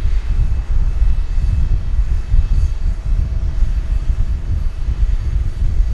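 Boeing 777-300ER's GE90-115B jet engines on landing approach: a loud low rumble that rises and falls unevenly, with faint thin whining tones above it.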